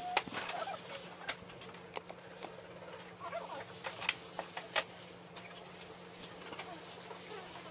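Sharp plastic clicks and knocks from HP ink cartridges being seated in an ink refiller unit and its pump being pressed down, about five clicks spread through, over a steady low hum.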